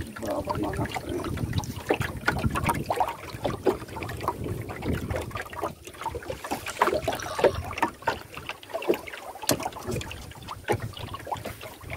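Water lapping against a small wooden canoe's hull with wind on the microphone, broken by many irregular small knocks and clicks as a fisherman handles a hand line in the boat.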